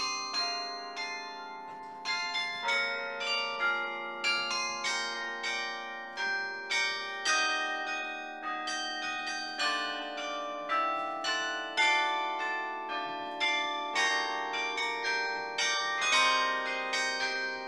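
Carillon bells playing a tune from the baton keyboard: a steady run of struck notes, often two or more at once, each ringing on and fading under the next.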